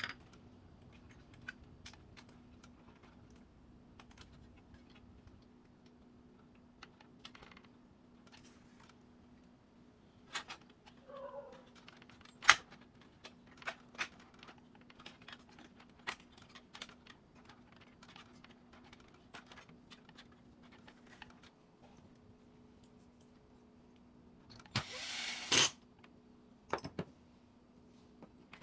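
Scattered small clicks and taps of hands working on a laser printer's parts, with a sharp click about twelve seconds in and a louder scraping rustle near the end, over a faint steady hum.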